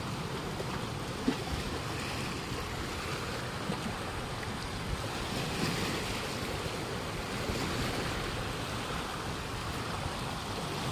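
Steady wash of small waves lapping at the water's edge, with wind buffeting the microphone.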